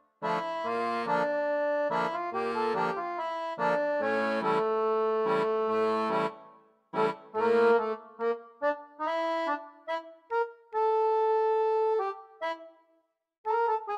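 Instrumental background music: a reedy melody over chords, turning to short, choppy notes about halfway through and one long held note near the end.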